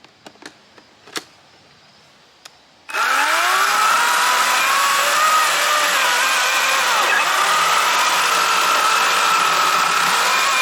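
Wild Badger 40-volt battery chainsaw's motor starting about three seconds in with a rising whine, then running steadily as it cuts into wood, its pitch wavering under load. A few light clicks come before it starts.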